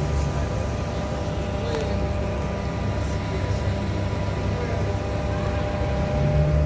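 City bus engine idling, a steady low rumble with faint constant tones above it.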